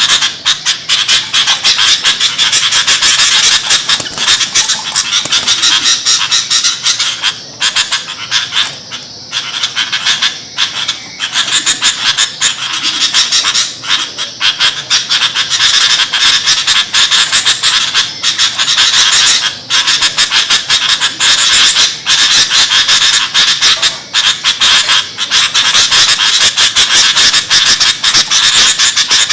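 Sooty-headed bulbul (kutilang) calls in a noisy, dense chatter of quick, sharp notes with hardly a break.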